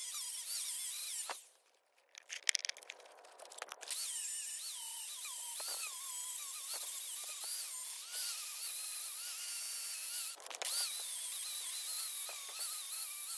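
Handheld electric angle grinder stripping rust from a small hatchet's steel head and handle, its motor whine wavering as the disc is pressed into the metal. It stops about a second and a half in, a few knocks follow as the hatchet is handled, and it grinds again from about four seconds on, with a brief break near ten seconds.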